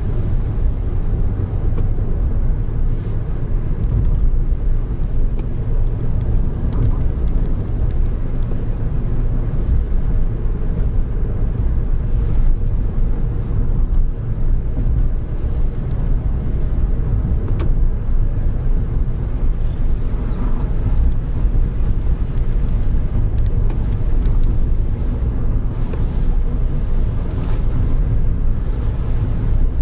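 Steady low road and engine rumble heard inside the cabin of a moving car, with faint scattered ticks.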